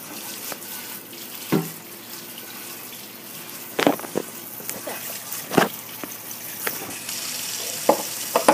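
Kitchen tap running into a sink over live crawfish being rinsed, a steady splashing that grows louder about seven seconds in, with a few sharp knocks and clatters against the sink.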